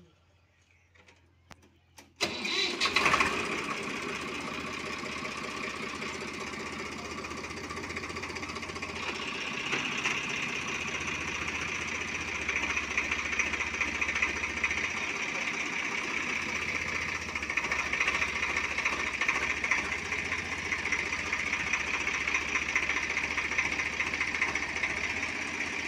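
Swaraj 744 FE tractor's three-cylinder diesel engine starting about two seconds in, then running steadily, a little louder from about ten seconds in.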